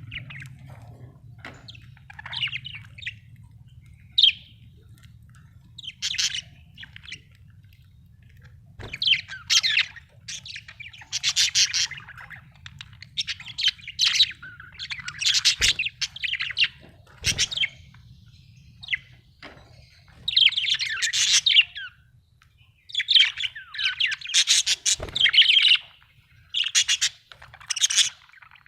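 Budgerigars chattering and warbling in bursts of a second or two, growing busier as it goes on. A faint steady low hum and a few brief knocks sit underneath.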